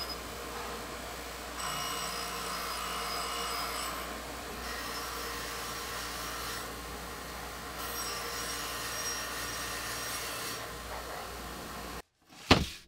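Bauer 8-inch bench grinder running, its spinning wheel scouring rust off a deeply pitted steel axe head, with the rasp growing louder in several passes as the metal is pressed on. Near the end the sound cuts out and a single sharp knock follows.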